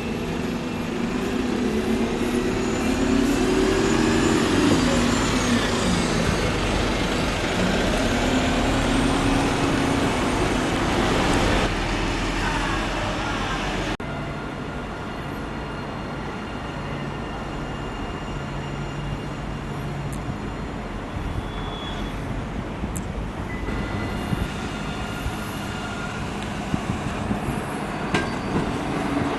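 Large vehicles passing close by, with engine pitch rising and falling over the first half. About halfway through the sound cuts abruptly to a quieter, steadier low engine hum.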